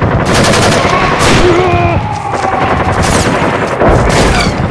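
Airsoft guns firing in rapid, sustained bursts at close range.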